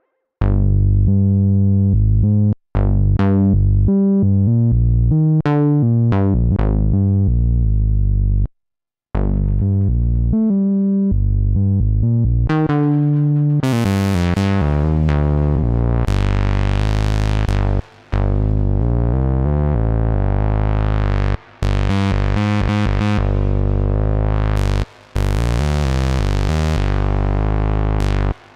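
Moog Subsequent 37 analog synthesizer playing a deep, bass-heavy preset in short sequenced notes, with brief gaps between phrases. About fourteen seconds in, the filter opens and the tone turns bright and buzzy.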